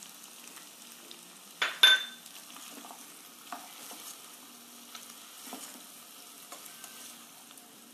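Chilli paneer sizzling faintly in a nonstick pan while a spatula stirs and tosses in chopped spring onions, with small scraping clicks throughout. A sharp clatter about two seconds in is the loudest sound.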